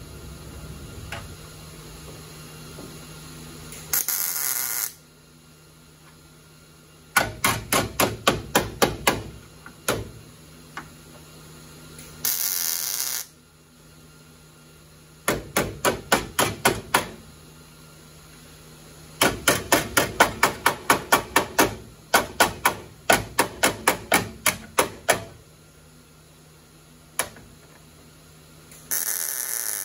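Runs of rapid hammer blows on sheet metal, about four a second, with three short bursts of crackling hiss about a second each, the sound of tack welds being laid. A steady low hum runs underneath.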